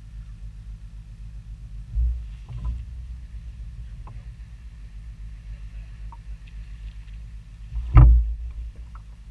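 Steady low rumble aboard a fishing boat, with a knock on the boat about two seconds in and a loud low thump about eight seconds in as a rod is lifted out of its holder to set the hook on a fish.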